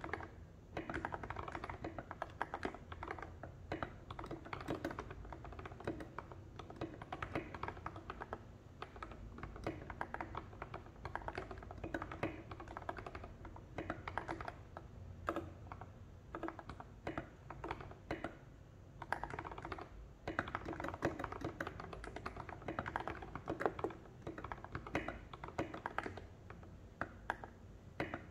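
Typing on an NJ68 mechanical keyboard with lubed Gateron Milky Yellow linear switches and SA-profile keycaps: fast, continuous keystrokes with a couple of short lulls.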